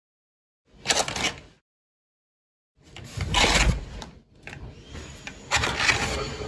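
Cardboard cupcake box being handled, its flaps folded and tucked: cardboard scraping and rustling in several separate bursts, the longest about three seconds in.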